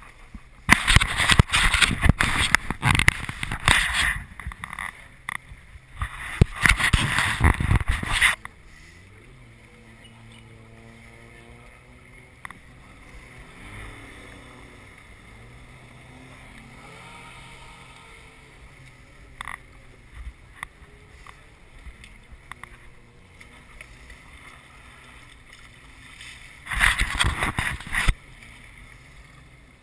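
Jet ski engines running on a lake: a passing jet ski's engine rises and falls in pitch. Loud rushing bursts of noise come in the first several seconds and again near the end.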